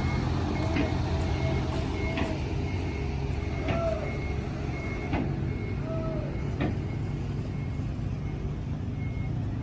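Heavy diesel bus engine running with a reversing alarm beeping, a series of short high beeps about twice a second, plus a few brief clicks and higher tones.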